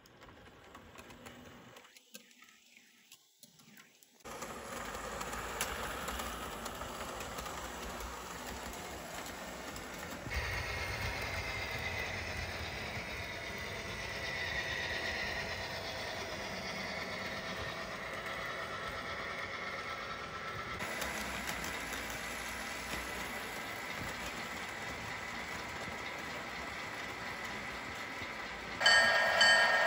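HO scale model diesel locomotives running on layout track, a steady electric-motor and wheel hum whose tone shifts at cuts about a third and two-thirds of the way through. Near the end a much louder sound made of several held tones starts abruptly.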